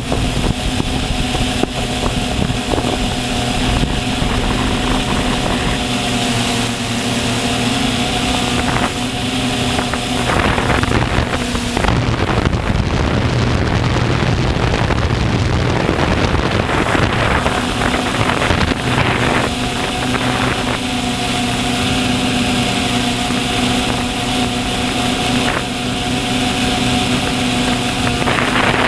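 Multirotor drone's electric motors and propellers humming steadily, heard from the camera on board, with wind rushing over the microphone that drowns the hum for several seconds midway.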